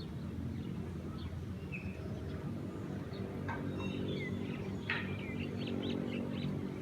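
Small birds chirping in short calls and quick sliding notes, over a steady low hum. A couple of brief sharp clicks come about halfway through.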